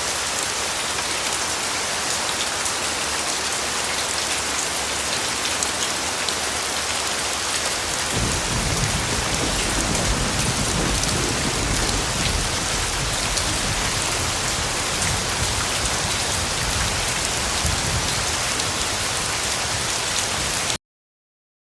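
Steady rain falling and pattering on hard surfaces, with a low rumble joining about eight seconds in and continuing; the sound cuts off suddenly near the end.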